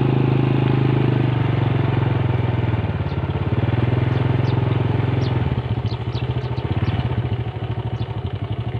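Motorcycle engine running while riding at low speed. The engine note drops about a second in and again a little past halfway, settling into a lower, pulsing run. A few short high chirps sound in the middle.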